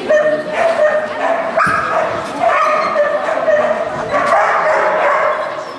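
A dog barking and yipping rapidly and excitedly in a high pitch.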